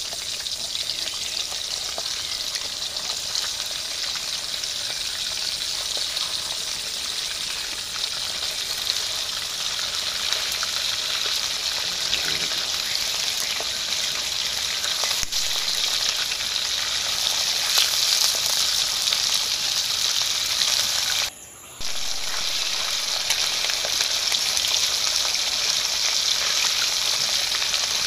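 Whole small fish frying in hot oil in a metal wok, sizzling steadily, with a spatula moving them about in the oil. The sizzle cuts out for about half a second roughly three-quarters of the way through.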